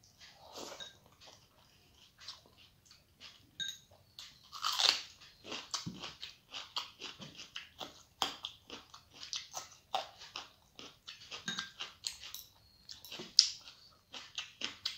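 Close-miked mouth sounds of eating rice and dal by hand: irregular wet chewing smacks, clicks and crunchy bites. There is a louder burst about five seconds in and a sharp click near the end.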